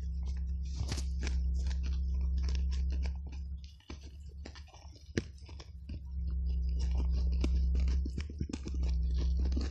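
Hands scraping and picking through crumbling soil and rotted debris, with many scattered small clicks and crackles. Under them runs a low steady hum, the loudest sound, which cuts out for about two seconds in the middle and then comes back.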